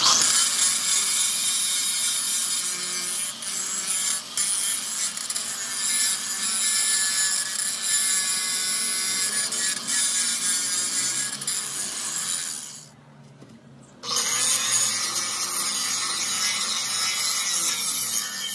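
Large electric angle grinder with an abrasive disc grinding a steel plate, a loud steady rasping grind. It breaks off for about a second roughly thirteen seconds in, then grinds again.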